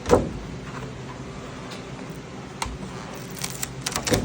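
Knocks and clicks of hands handling a failed TPU print and the 3D printer's parts: one loud knock at the start, a single click midway, and a cluster of clicks near the end. A steady hum, typical of the printer's fans, runs underneath.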